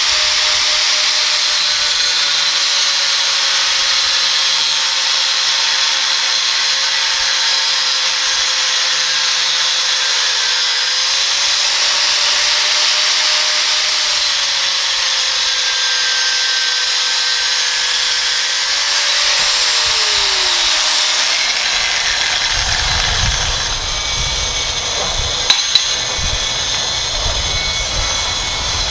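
Angle grinder with a diamond cut-off wheel running and cutting, a loud, steady hiss-like grind over a steady motor whine. About two-thirds of the way in, a lower pitch slides down and a low rumble joins, with two sharp clicks shortly after.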